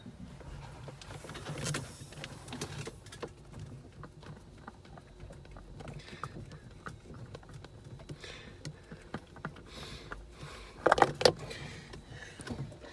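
Small clicks and scrapes of a spin-on oil filter being turned off a diesel engine by hand, then a short, loud clatter about eleven seconds in as the filter is dropped.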